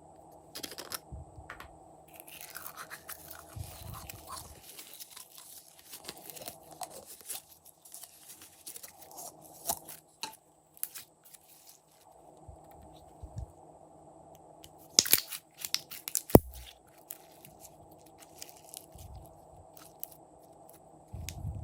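Glossy slime being worked and mixed by hand: sticky clicking, crackling and wet squelching, with a few sharp louder pops about two-thirds through.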